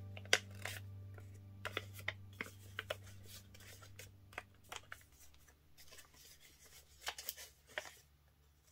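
Folded paper airplane rustling and crinkling in the hands, with scattered sharp clicks of the paper as the wings are handled and adjusted. A faint low hum fades out about five seconds in.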